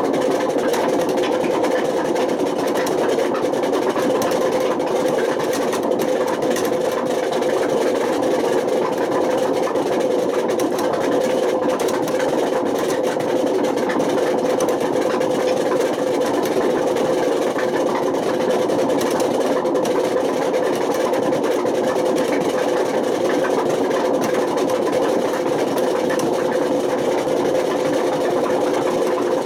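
Panasonic NA127VB6 washing machine running with worn-out drum bearings: a loud, steady grinding rumble with a constant whine that does not change in pitch. This is the noise of failed bearings, bad enough to have damaged the drum spider.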